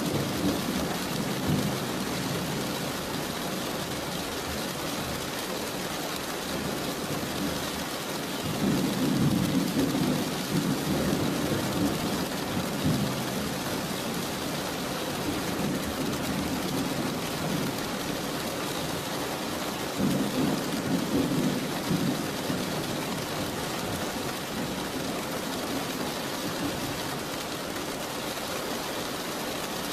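Steady rain with rolls of thunder: one rumble at the start, a long roll about nine seconds in, and another about twenty seconds in.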